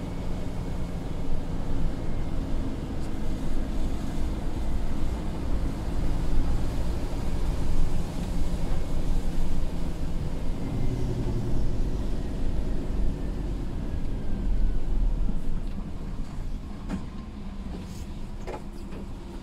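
Scania P250 lorry's diesel engine running on the move, heard inside the cab with a steady drone and tyre and road noise. The engine note eases near the end as the lorry slows for a junction, with a few sharp clicks.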